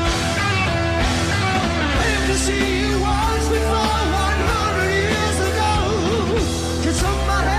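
Hard rock band playing live: electric guitar, bass and drums, with a wavering melody line over a steady, heavy low end.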